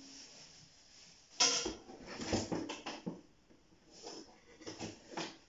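Cake tins and their packaging being handled during unpacking: a sharp knock about a second and a half in, then a run of short knocks and clatters.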